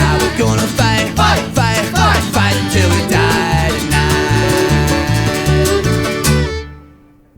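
Upbeat instrumental band music with a steady, bouncing bass line and bright melody over it, ending on a final hit about six seconds in and then dying away.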